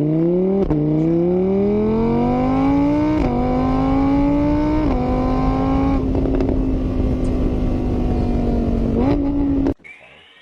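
Motor vehicle engine accelerating through the gears: its pitch climbs and drops back at each of three shifts, then holds steady at a cruise. The sound cuts off abruptly near the end.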